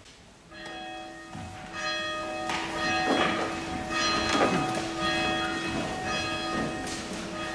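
A church bell struck several times, each stroke ringing on into the next, with rustling and knocks as the congregation stands.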